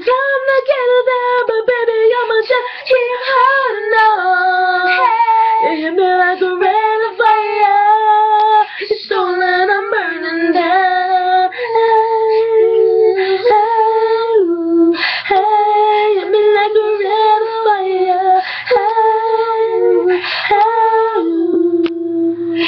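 Two girls singing an original R&B-style song together without accompaniment, holding long notes and sliding between them.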